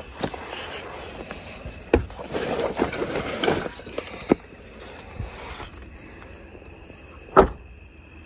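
Rustling and several sharp knocks of close handling, then a steady high insect chirp, typical of crickets, with one loud click near the end.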